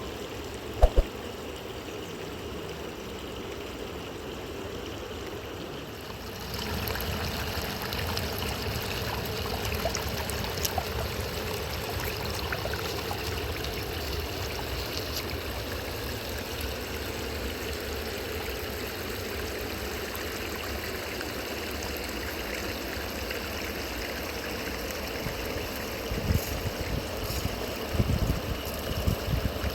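River water flowing over rocks in a steady rush; it gets louder about six seconds in, and a few low thumps come near the end.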